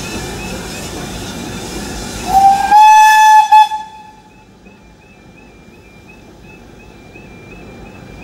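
One loud blast of a steam locomotive's whistle, about a second and a half long, from BR Standard Class 4 tank engine 80078, beginning a little over two seconds in. Under it a level crossing's warbling alarm repeats two to three times a second throughout. The train's running rumble is heavy at first and drops away after the whistle as the coaches roll past.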